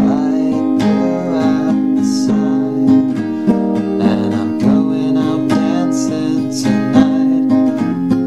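Music: a song with strummed acoustic guitar.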